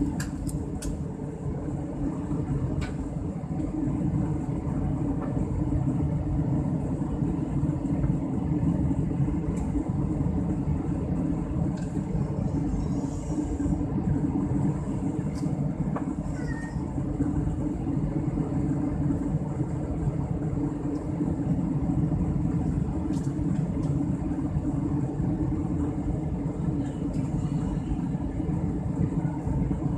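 Steady low rumble of an airliner's engines and rushing airflow, heard inside the passenger cabin during the descent.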